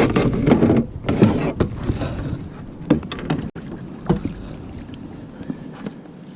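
A hooked fish being landed and handled in a kayak: irregular splashing and scuffling noise for the first two seconds or so, then a few sharp clicks and knocks before it settles down.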